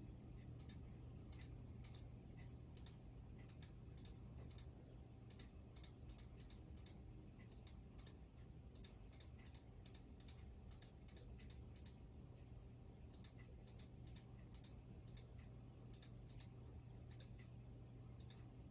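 Computer mouse clicking, irregular single clicks about two a second, over a faint low steady hum.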